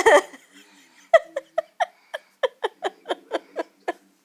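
A girl laughing: a short loud vocal burst, then from about a second in a run of about a dozen short, evenly spaced laugh pulses, roughly four a second.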